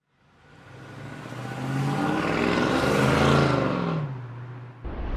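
A motor vehicle passing by. It swells out of silence, its engine pitch rising and then falling as it peaks about three seconds in, then fades. A deep low rumble starts near the end.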